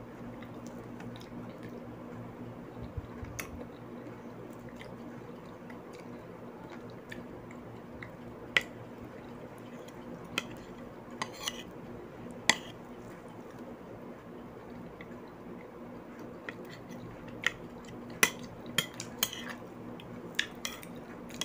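Spoon and fork clinking and scraping on a plate every so often: scattered sharp clicks, the loudest about 8, 12 and 18 seconds in, with a quick run of them near the end. A steady low hum lies underneath throughout.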